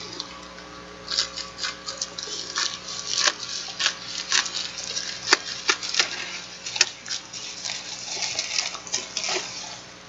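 Plastic bubble-lined mailer being handled and opened: irregular crinkling and crackling of the plastic, over a faint steady hum.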